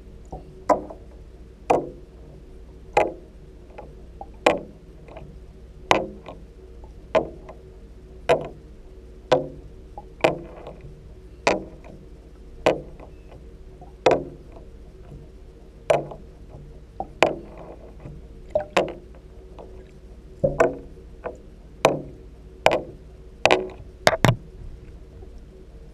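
Water knocks and splashes in a bathtub, heard underwater through a GoPro's housing, as a fishing lure is worked through the water by hand: sharp knocks about once a second, coming faster and in quick pairs near the end, over a steady low hum.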